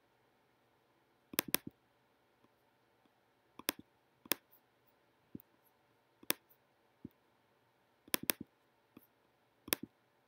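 Sharp clicks of a computer pointer, some single and some in quick pairs like double-clicks, coming about every one to two seconds.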